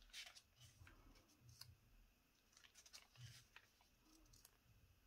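Faint rustling and light scattered clicks of paper planner pages being handled and turned.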